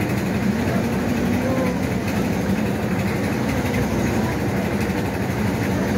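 Engine running steadily with an even, low hum that does not change.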